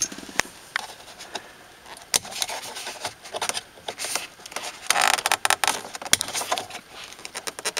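Plastic clicks and scraping as a cap is pried off the steering-column nub and the push-to-talk voice-control lever is pushed and snapped into place. Sharp clicks come one after another throughout, with longer scraping around the middle.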